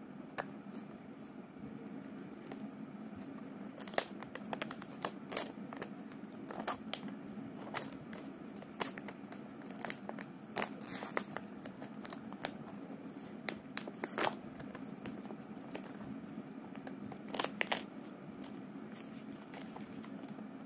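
Metallised foil wrapper of a sweet pack crinkling and tearing as it is cut with scissors and peeled open by hand. Irregular sharp crackles come thickest from about four seconds in until near the end, over a steady low hum.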